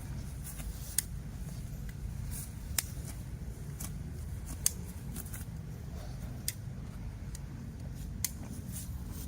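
Cattle walking along a road: sharp hoof clicks about every two seconds over a steady low rumble.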